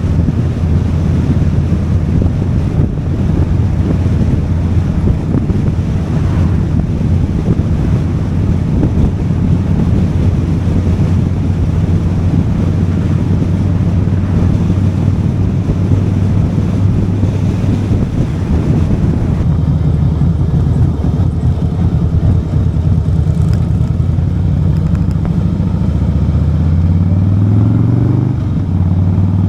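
Motorcycle engine running at road speed with wind rushing over the microphone; near the end the engine pitch rises as it accelerates.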